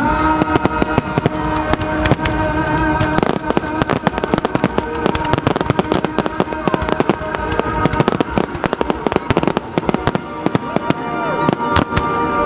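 Fireworks display going off in a rapid, continuous barrage of bangs and crackles, with music playing underneath.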